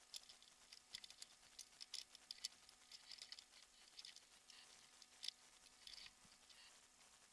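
Faint, irregular clicking and ticking of climbing hardware as carabiners and a rope device are handled on a climbing harness, several small clicks a second.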